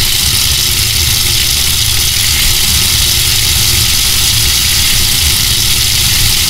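Tap water gushing full on into sinks: a loud, steady rush with a deep rumble under a hiss.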